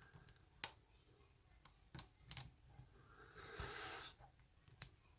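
Faint, scattered metallic clicks of lock picks and a tension tool working inside a Bi-lock oval padlock, about half a dozen spread over the few seconds, with a soft rustle about three and a half seconds in.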